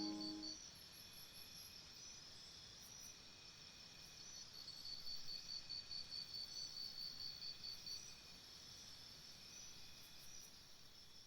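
Faint, high-pitched pulsed chirping of insects, several pulses a second, over a low hiss. A music track fades out in the first half second.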